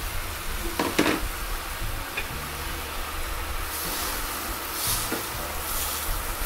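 Saluyot (jute mallow) leaves being stirred and turned in a hot pot with a plastic spatula, over a low sizzle of the sautéed onion, garlic and pork beneath them. Two sharp knocks come about a second in.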